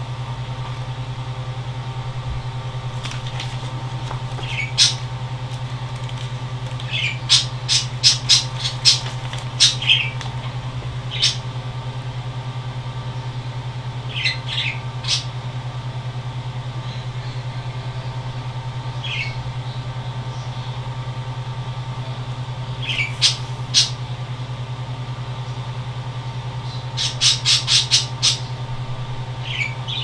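Short, high bird chirps and squawks in scattered clusters, some sharp and clicking, over a steady low hum.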